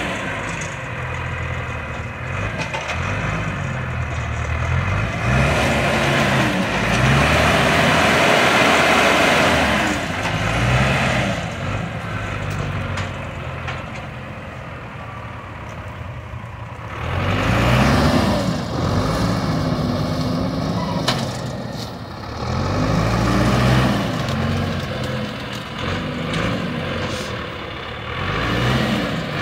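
Heavy vehicle engine working under load, its pitch rising and falling several times as it is revved and eased off.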